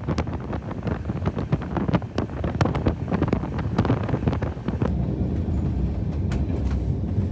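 Moving express passenger train heard from its open coach door: wheels clattering irregularly on the track over a low rumble, with wind buffeting the microphone. About five seconds in the clatter thins out into a steadier low rumble.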